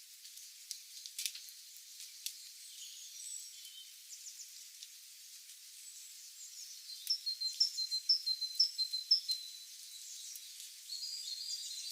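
Wild songbirds chirping and calling in high, short notes over a steady hiss. From about seven seconds in, one bird repeats a short high note about twice a second.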